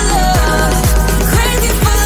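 Background music with a steady beat, about two beats a second, under a melody line.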